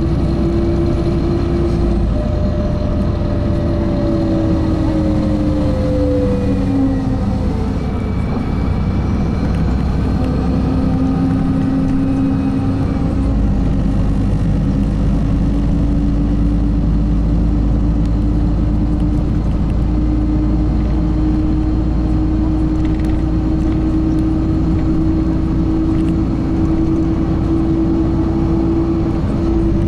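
LiAZ-5292 city bus under way: steady engine and drivetrain drone with a whining tone that drops about seven seconds in, then slowly climbs again as the bus runs on.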